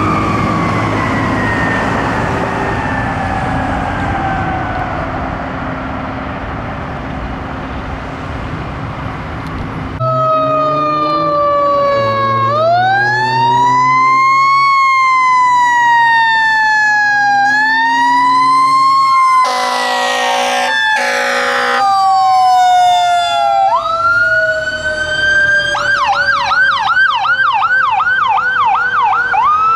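Fire apparatus sirens. A tiller ladder truck's siren winds slowly down over its engine and road rumble. Then a fire engine and ambulance respond: a siren wails up and down, two air horn blasts sound a little past midway, the siren winds down, and a second siren comes in and switches to a fast yelp near the end.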